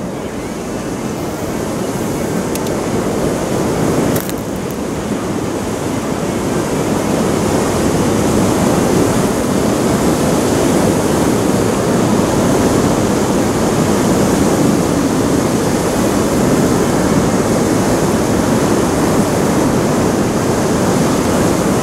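Steady rushing noise of wind buffeting the microphone, mixed with water spilling over a river weir, growing louder over the first several seconds.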